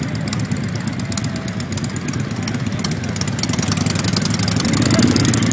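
Motorcycle engine running at low speed with a steady low rumble, swelling a little near the end.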